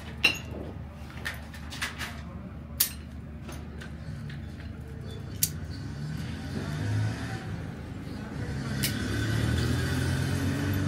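Sharp metal clinks and knocks of workshop tools, about five in the first six seconds, the first one ringing briefly. From about six seconds in, a motor vehicle engine running grows louder under them.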